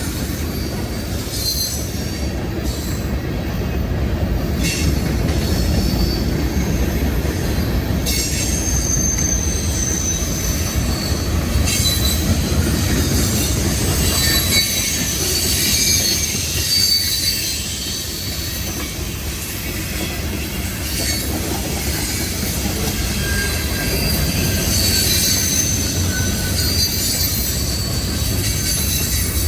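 Freight train rolling past, its cars rumbling steadily over the rails, with high-pitched wheel squeal coming and going.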